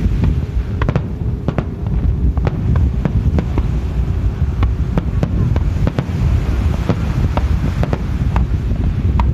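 Aerial firework shells bursting in an irregular run of sharp bangs, about two a second.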